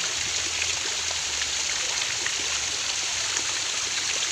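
Steady rush of running water, with small splashes and drips ticking through it.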